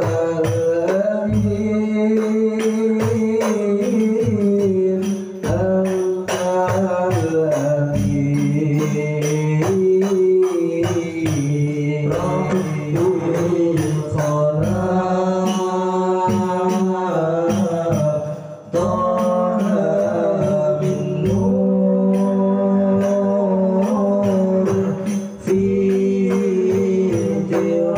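Sholawat al-banjari: a male voice sings a melismatic Arabic devotional melody with long, wavering held notes over rebana frame drums beating a busy, steady rhythm.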